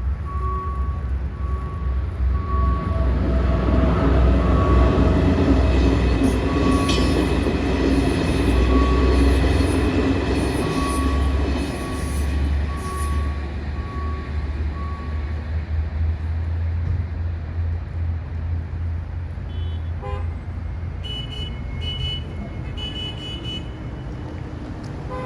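Saudi Railways passenger train passing with a deep, steady rumble that swells about four seconds in and eases after about thirteen seconds. A short beep repeats about once a second through the first fifteen seconds, and short high chirps come near the end.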